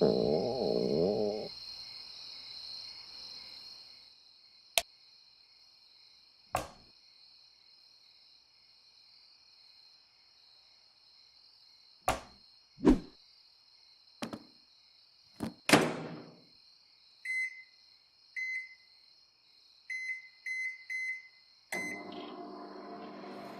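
Cartoon sound effects: a short wavering pitched sound at the start over a steady night-time cricket drone, then a scattering of sharp knocks and thumps, then a run of short high electronic beeps about two-thirds of the way through.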